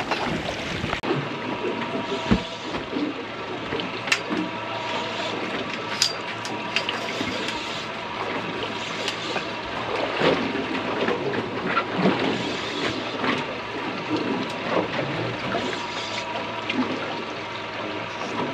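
Steady rushing and gurgling of water, with scattered small clicks.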